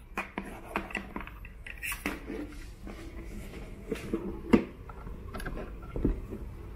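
Handling noise: scattered light clicks, taps and rustles as a USB-C cable and the phone filming it are moved about, with a sharper knock about four and a half seconds in.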